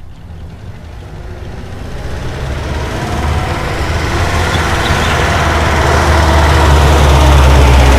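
School bus approaching, its low engine rumble growing steadily louder as it draws near.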